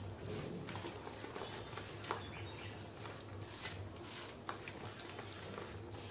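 A bare hand squishing and stirring a thick yogurt-and-spice marinade in a metal bowl: irregular wet squelches and small smacks, with two sharper clicks about two seconds in and again a second and a half later.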